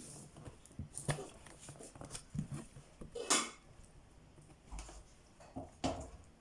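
A knife cutting and tearing at stiff, hard-to-open plastic parcel wrapping, in a few short rasping strokes, the loudest about three seconds in.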